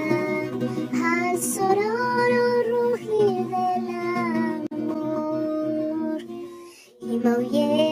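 A song: a high singing voice holding drawn-out notes over acoustic guitar accompaniment, with the music dropping out briefly near the end before it comes back.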